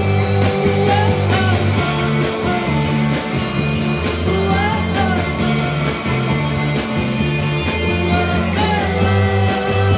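A rock band playing live: drum kit, electric guitar and electric bass, with a heavy bass line moving between low notes.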